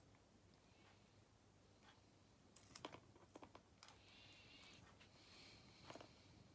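Faint small clicks and taps from fingers handling an opened plastic correction-tape roller, with soft rustling of its tape, in near silence. A cluster of clicks comes about three seconds in and another about six seconds in.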